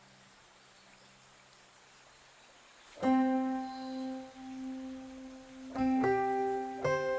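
Instrumental background music: very faint for about three seconds, then ringing piano-like notes strike and sustain, with new notes about three and four seconds later.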